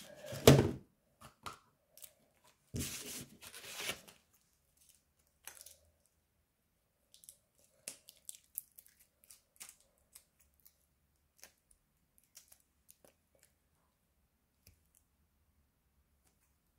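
Tape-covered paper and plastic wrapping being torn and crinkled by hand: a loud rip in the first second, another stretch of tearing about three seconds in, then only scattered light crackles.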